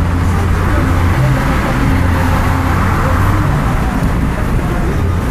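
Steady car road and engine noise heard from inside the moving car's cabin: a constant low hum with tyre and wind rush.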